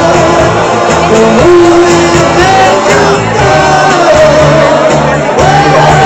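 Music with a singer over a stepping bass line, loud and continuous, with faint crowd voices underneath.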